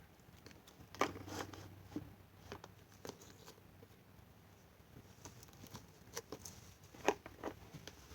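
Slime putty being kneaded and stretched by hand while clear foaming facial cleanser is worked in, giving scattered small sticky pops and crackles.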